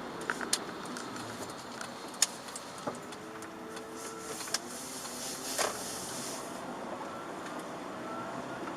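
Chevrolet Aveo 1.4 petrol car driving on a wet road, heard from inside: steady tyre and road noise with the engine's hum rising and falling in pitch. Scattered sharp ticks and clicks come through, the loudest about two seconds in.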